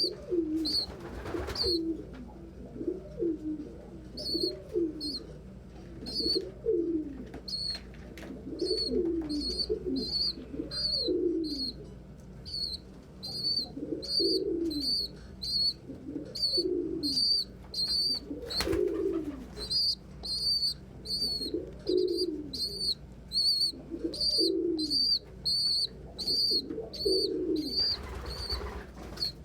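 Domestic pigeons cooing over and over in a loft, loud and echoing in the small room. A steady run of short, high-pitched peeps, about two a second, sounds over the cooing from a few seconds in. There is one sharp tap about two-thirds of the way through.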